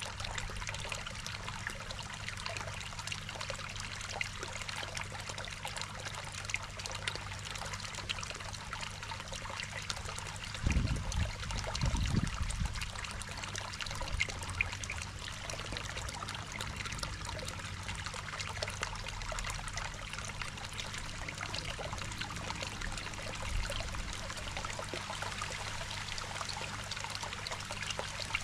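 Water running steadily in a koi pond, with a steady low hum beneath it and a couple of low bumps about eleven and twelve seconds in.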